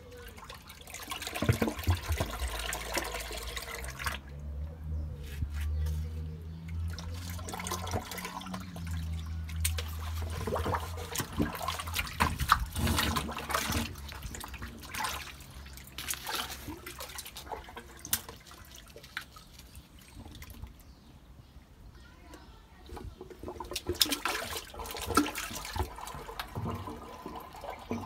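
Sewage sloshing and gurgling in a flooded drain inspection chamber as drain rods with a rubber plunger are worked into the blocked outlet pipe, with irregular splashes and knocks. A low rumble runs through the first ten seconds or so, and the chamber's water is draining away as the blockage clears.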